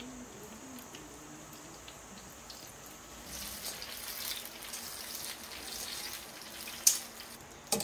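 Samosas frying in a pan of oil: a soft crackling sizzle that grows louder about three seconds in as metal tongs turn and lift them. Near the end come two sharp clicks of the tongs.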